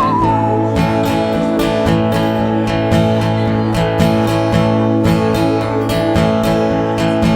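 Acoustic guitar strummed in a steady rhythm, playing chords through an instrumental break.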